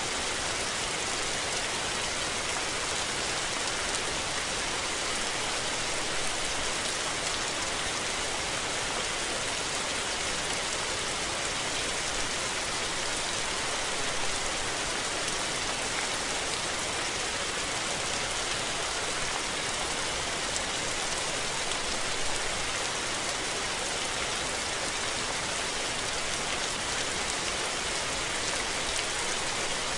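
Steady rain falling, an even hiss of many drops on surfaces with no let-up.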